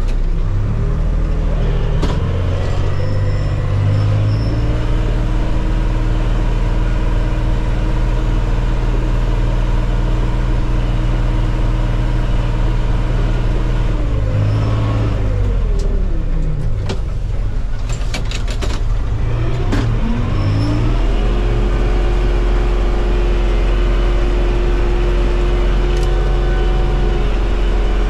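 Valmet tractor's diesel engine running under load, heard from inside the cab, its revs dropping and climbing back near the start and again about halfway through.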